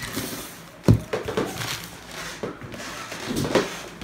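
Handling noise from unboxed accessories being set out on a table: rustling of plastic packaging with a sharp knock about a second in and a few lighter knocks after.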